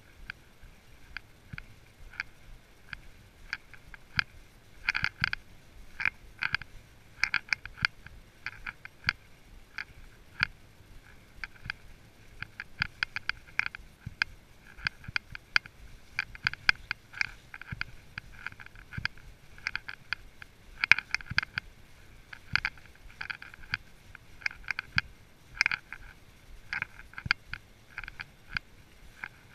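A horse being ridden at a walk on a leaf-covered trail: irregular light clicking and rattling in quick clusters, the kind made by tack moving with the horse's steps.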